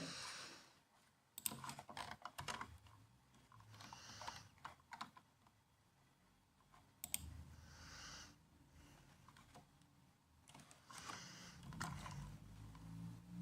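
Faint typing on a laptop keyboard: short bursts of key clicks separated by pauses of a second or two.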